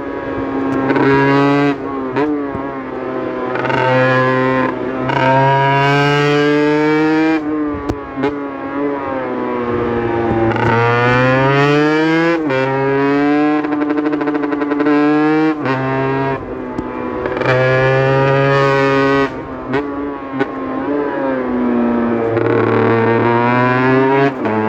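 Aprilia RS 125's single-cylinder two-stroke engine revving hard through the gears. The pitch climbs and drops sharply again and again as it shifts, with a few longer falls where it comes off the throttle.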